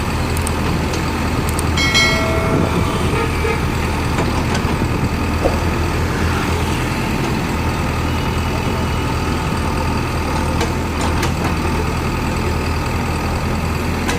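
Diesel engine of a JCB 3DX backhoe loader running steadily as it works, with a brief high squeal about two seconds in and a few light clanks.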